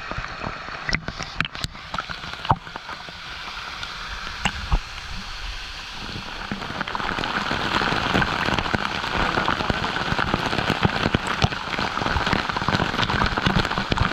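Falling water splashing in a steady, dense hiss that swells about halfway through, with a few sharp knocks near the start.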